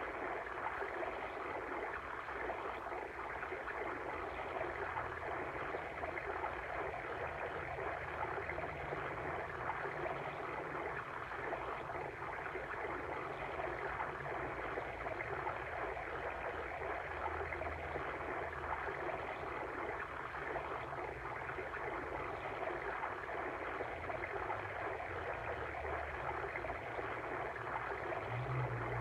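Flowing water stream, a steady babbling rush with a low rumble beneath it.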